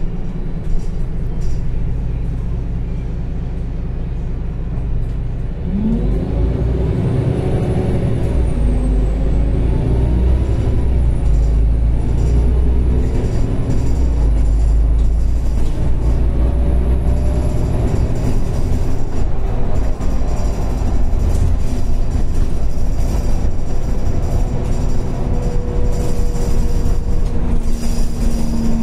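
Solaris Urbino 12 IV Mild Hybrid city bus heard from inside the passenger cabin, with its drivetrain running. About six seconds in, the low rumble rises as the bus moves off and accelerates, and whining tones glide up and wander in pitch with speed. A thin high whine runs over the middle, and a steadier hum comes near the end.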